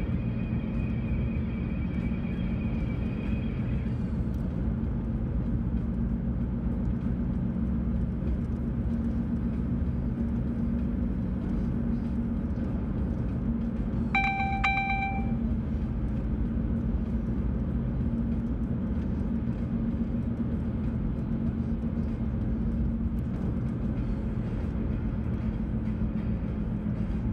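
Steady road and engine rumble inside a moving car's cabin. About halfway through there is a single beep lasting just over a second.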